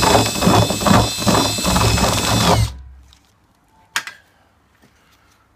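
Cordless drill with an auger bit running in a hole in a plastic barrel, widening the hole, with a steady motor whine over a pulsing grind as the bit cuts. The drill stops and winds down a little under three seconds in, and a single sharp click follows about a second later.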